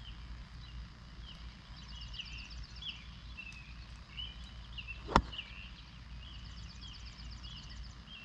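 A 56-degree wedge striking a golf ball off fairway turf once, a single sharp hit about five seconds in. Birds chirp and trill in the background.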